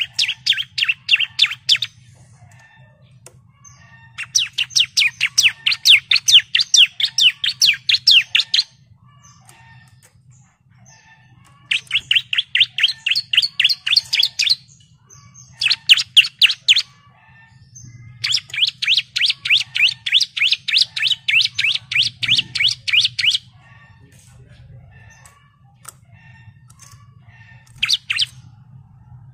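Bar-winged prinia (ciblek) singing in phrases of rapid, evenly repeated high chirps, each phrase lasting from under a second to about five seconds, with short pauses between. A faint low hum runs underneath.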